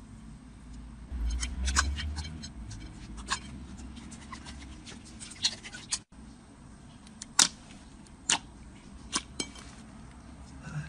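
Slime being pressed and stretched by hand, giving scattered sharp clicks and pops over a faint hiss, with a low rumble in the first few seconds.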